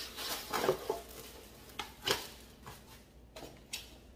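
Boxes and packaging handled on a countertop: a handful of light knocks and clicks with some rustling as a box lid is lifted off and the wrapped contents are reached for.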